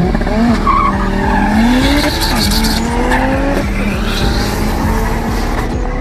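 Two drag-race cars launching from the start line at full throttle, their engines climbing in pitch and dropping back at gear changes about two and a half and three and a half seconds in.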